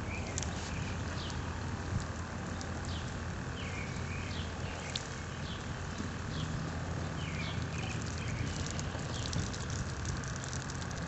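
Gasoline pouring in a thin stream from a plastic gas can into a puddle on concrete, a light splashing trickle. Under it a steady low rumble, and birds chirping briefly now and then.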